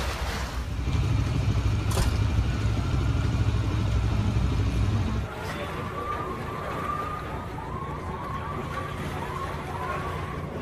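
A heavy low engine rumble that stops about five seconds in, then an emergency vehicle's siren in a quick, repeating yelp.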